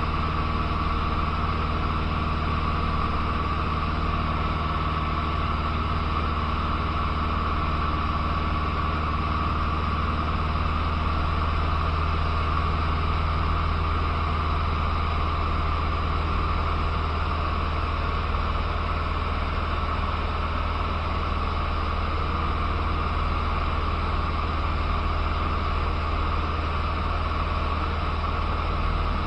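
Cessna 150's four-cylinder Continental O-200 engine and propeller in flight, a steady, unchanging drone heard inside the cockpit, mixed with the hiss of rushing air.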